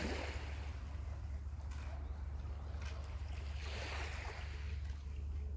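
Small sea waves washing against a rocky shore, two swells about four seconds apart, over a steady low rumble.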